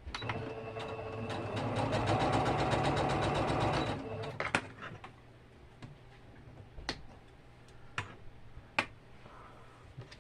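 Electric sewing machine stitching fabric appliqué pieces in a fast run of needle strokes for about four seconds, then stopping. A few sharp clicks follow.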